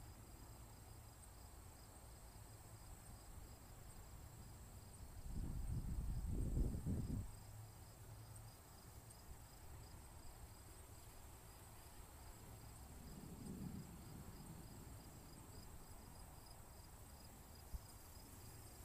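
Crickets chirping steadily in a chorus. Two low rumbles rise over it, a louder one about five seconds in lasting a couple of seconds, and a fainter one around thirteen seconds in.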